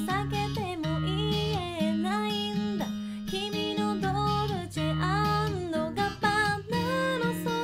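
A woman singing a slow Japanese pop ballad over acoustic guitar accompaniment, her melody gliding between held notes.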